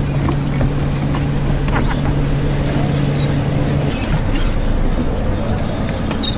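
Wind buffeting the microphone out on open water, with a steady low motor hum that cuts off about four seconds in.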